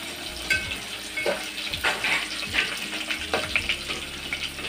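Crushed garlic cloves, dried red chillies, cumin and mustard seeds frying in hot oil, sizzling with many irregular pops and crackles as a spoon stirs them: the tempering (tadka) for a dal.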